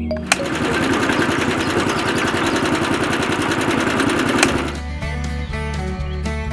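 A small machine clattering rapidly and evenly for about four seconds, then cutting off suddenly; background music takes over near the end.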